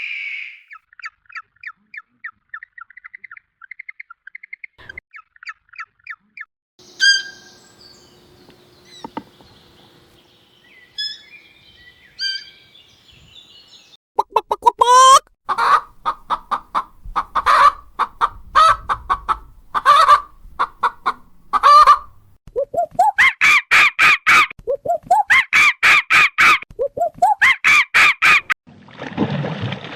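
A run of different bird calls. First comes a fast chirping trill, then scattered short chirps, then loud calls repeated over and over, several of them rising in pitch, for the last half.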